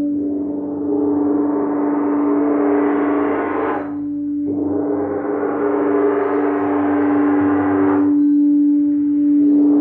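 Crystal singing bowls ringing: one bowl holds a steady hum. Over it, a shimmering metallic wash swells for about three seconds and stops abruptly, twice.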